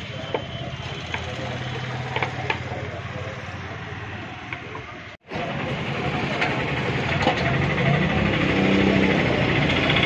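Light metallic clinks of hand tools and engine parts over a steady low hum; after a brief break about halfway, a louder engine running nearby that grows steadily louder.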